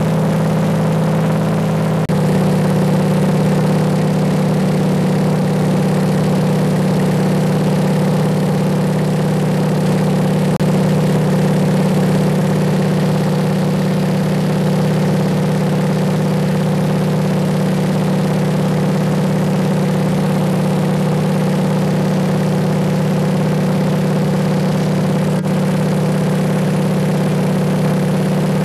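Steady drone of a de Havilland Beaver floatplane's engine and propeller in flight, heard from inside the cabin; the tone shifts slightly about two seconds in.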